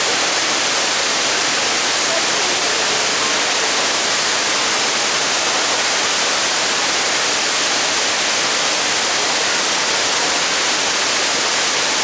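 A large concrete dam's spillway releasing water through its open gates, the torrent pouring down the dam face in a loud, steady rush.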